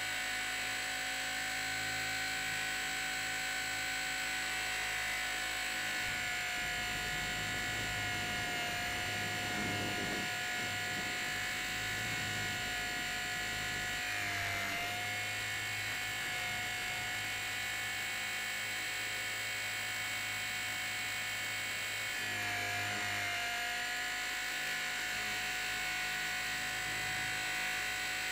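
Blade 450 X RC helicopter's electric motor and rotor head, heard from a camera mounted on the helicopter in flight: a steady high whine and buzz. The pitch dips briefly twice, about halfway through and again about three quarters of the way through, then comes back up.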